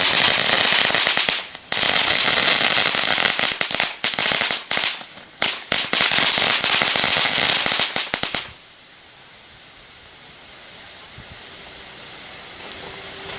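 Cracker balls crackling in a dense, loud rapid-fire burst for about eight seconds, with a few brief breaks, then stopping suddenly. They leave a much softer steady hiss from the smoke balls still burning.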